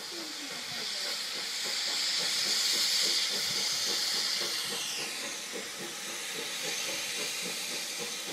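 Steam locomotive hissing steam as it comes in. The hiss is loudest about three seconds in and drops lower in pitch about five seconds in.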